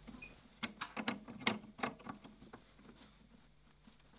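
Light metal clicks and taps of a brass gas hose fitting being screwed into a TIG welder's gas inlet and tightened with a spanner: about eight short clicks in the first two and a half seconds.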